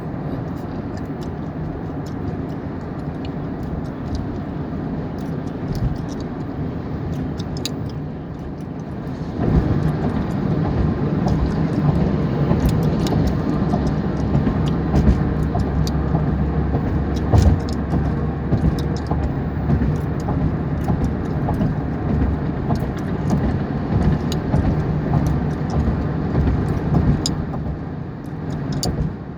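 Gum chewing close to the microphone: frequent wet smacks and clicks over the steady low rumble of a car cabin in traffic. The rumble gets louder about a third of the way in and eases just before the end.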